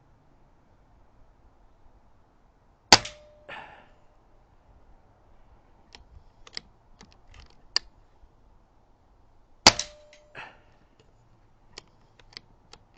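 Two shots from a Retay T20 PCP air rifle, about seven seconds apart, each followed about half a second later by a softer sound. A few small clicks come between the shots.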